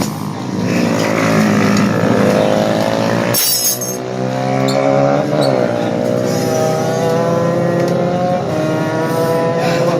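Several motorcycle engines running on the race track, their pitch climbing steadily as the bikes accelerate, one after another. A short sharp noise cuts in about three and a half seconds in.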